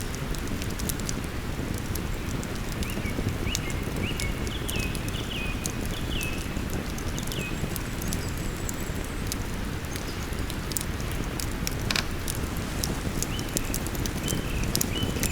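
Wood campfire crackling with many sharp pops, one louder pop about twelve seconds in, over the steady rush of a flowing river. A bird calls in runs of short, high chirps twice.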